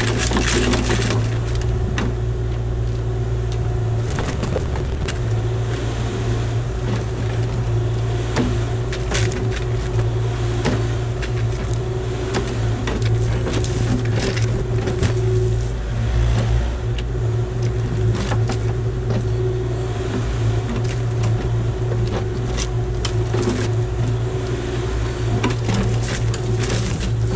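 Kubota KX040-4 mini excavator's diesel engine running steadily under load, powering a hydraulic forestry mulcher head that shreds briars and brush. Over the steady hum come constant sharp ticks and cracks of wood debris hitting the head.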